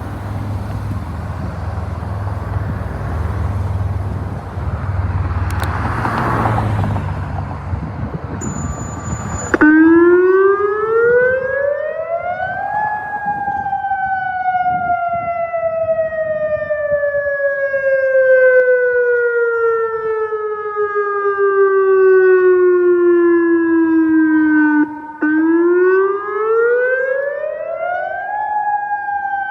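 Outdoor tornado warning siren sounding a wail. It cuts in abruptly about ten seconds in, rises in pitch for about three seconds, falls slowly for about twelve, then rises again near the end. Before it starts there is wind rumble on the microphone and a passing car.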